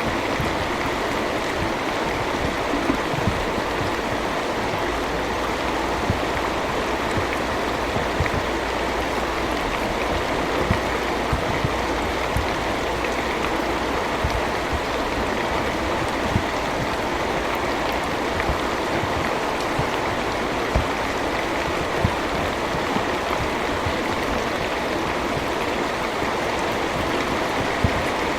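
Steady heavy rain with a dense, even hiss, and now and then a single louder drop tapping sharply above it.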